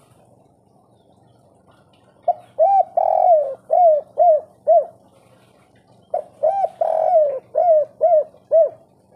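Spotted dove cooing its 'kuk 3' song twice, about four seconds apart. Each phrase is a couple of short coos, one longer drawn-out coo, then three short evenly spaced coos, each note rising and falling in pitch.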